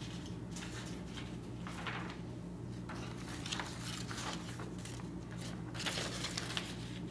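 Soft rustling of a sheet of scratch paper as it is handled and sliced against a fixed-blade knife's edge to test its sharpness, with a longer hiss near the end. A low steady hum runs underneath.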